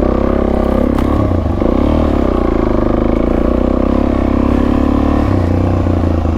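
Suzuki DR-Z400S single-cylinder four-stroke engine running as the bike is ridden, its note rising and falling a little with the throttle. There is a faint click about a second in.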